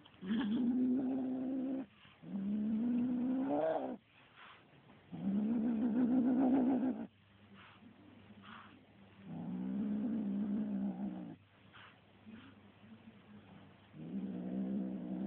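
Kitten growling at a feather toy in long drawn-out growls of about two seconds each: four of them, then a fifth starting near the end. The second rises in pitch as it ends.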